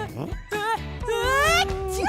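A cartoon boy's drawn-out vocal wind-up to a sneeze, his voice rising in pitch and then held on one note, over children's background music.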